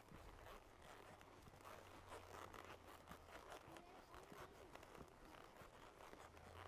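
Near silence: faint, irregular scratching and soft clicks from a horse walking a trail under saddle.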